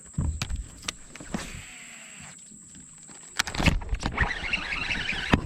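Knocks and clicks of fishing gear and the hull in a jon boat, with a louder cluster of knocks about three and a half seconds in, followed by a steady rough hiss.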